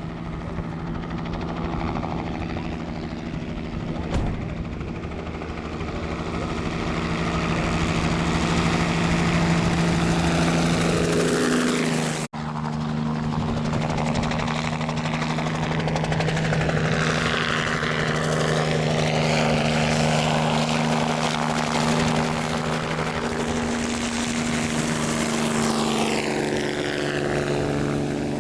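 Crop-spraying helicopter flying over, its engine and rotor making a loud, steady drone whose pitch shifts slightly twice as it moves. The sound cuts out for an instant about twelve seconds in.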